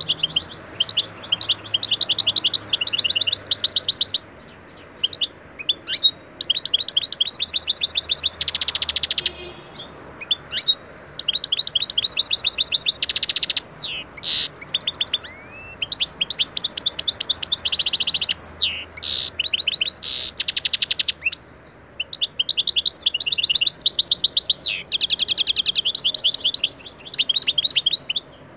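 European goldfinch singing: fast runs of twittering, rapidly repeated notes and trills, with some rising and falling whistled glides, broken by a few brief pauses.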